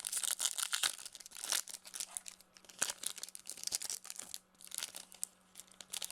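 Crinkling and tearing of trading-card packaging: the foil wrappers and cardboard of a 2020 Bowman Baseball blaster box being handled and opened, in a dense run of irregular crackles.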